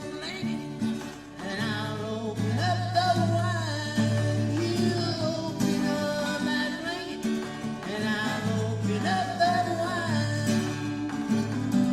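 Music: a singing voice over strummed acoustic guitar and bass.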